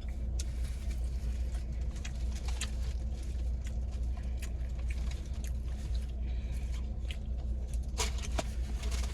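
Close-miked eating sounds, with many small wet clicks and smacks of chewing, over the steady low hum of a car's running engine.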